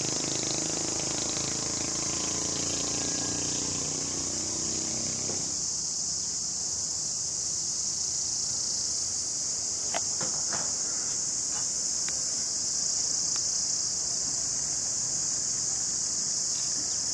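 Steady, high-pitched chorus of insects. Low background noise underneath cuts off abruptly about five seconds in.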